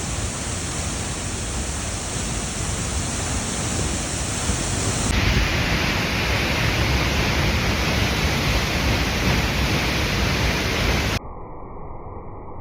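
Steady rushing of a waterfall. The sound shifts abruptly about five seconds in, then turns quieter and duller about eleven seconds in.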